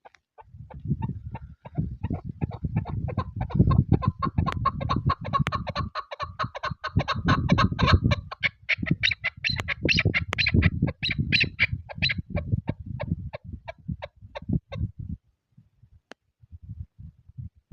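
Chukar partridge calling: a long series of rapid clucking notes, about six a second, building up and then fading out near the end.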